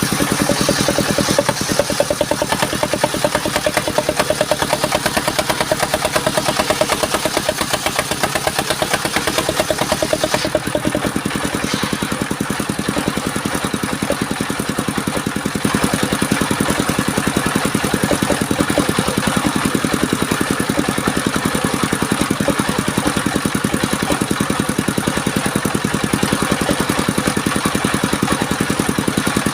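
Engine of a portable circular sawmill running steadily at an even speed, with a fast, regular firing rhythm.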